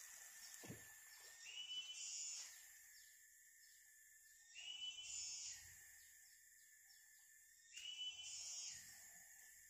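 Faint outdoor ambience with a high animal call that repeats about every three seconds, each one rising and then holding for about a second, over a steady high tone.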